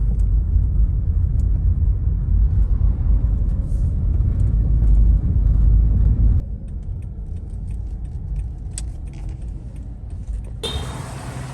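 Steady low rumble of a vehicle on the move, with small jingling clicks over it; it drops abruptly about six seconds in and changes again near the end.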